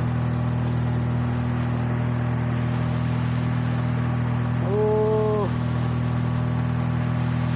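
An engine running steadily at constant speed, an even drone with no change in pitch. About five seconds in, a short held call sounds over it for roughly a second.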